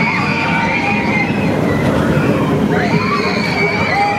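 Roller coaster train running along its steel track: a loud, steady rumble of the wheels, with high wavering tones over it.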